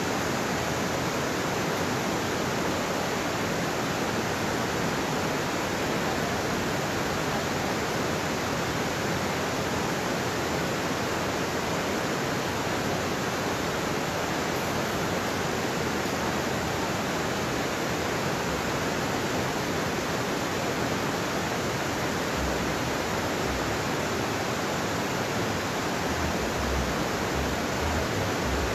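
Steady rush of a waterfall, with the creek running over rocky rapids below it.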